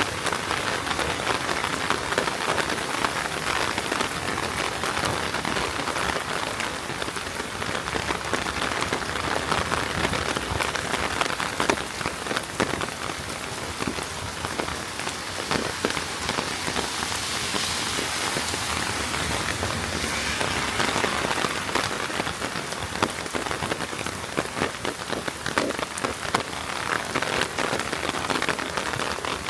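Heavy rain falling on a wet street: a steady, dense patter of many individual drops.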